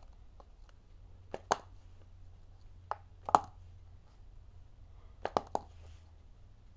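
Plastic marker flipped and landing on a hard tabletop with sharp clacks, three times, each landing bouncing or clattering once or twice more, over a faint steady low hum.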